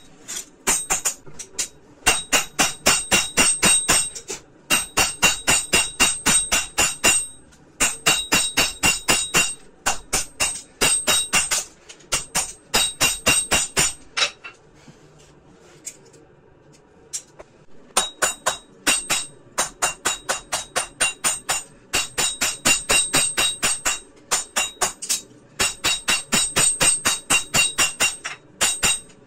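Hammer blows on hot steel at an anvil, forging a chisel blank: quick runs of ringing metallic strikes lasting a few seconds each, with a pause of about three seconds midway.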